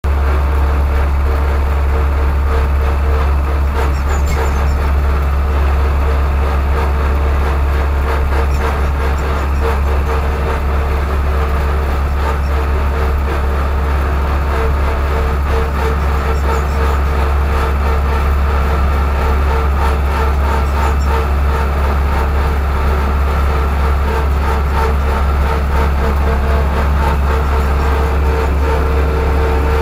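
Ursus tractor's diesel engine running steadily at road speed, heard from inside the tractor's cab.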